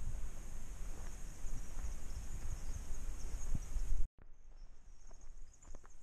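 Footsteps on a dirt trail, a run of soft irregular knocks with low rumble, over a steady high chorus of insects. About four seconds in the sound cuts out for an instant and comes back quieter, with the insects still going and the steps fainter.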